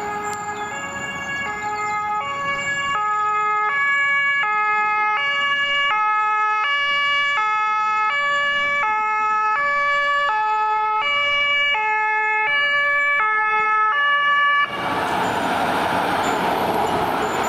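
A German fire engine's two-tone siren sounding, alternating steadily between a high and a low tone. Near the end the siren cuts off and a loud rushing noise takes over.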